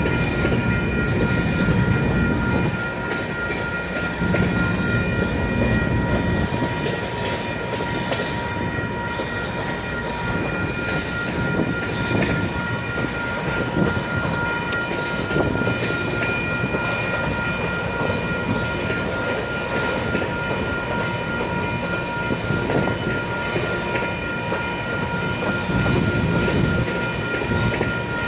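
Loaded grain hopper cars rolling slowly past, with a low rumble and clatter of the wheels. Over this runs a steady high squeal from wheel flanges grinding on the curved track, with a few brief sharper squeals near the start.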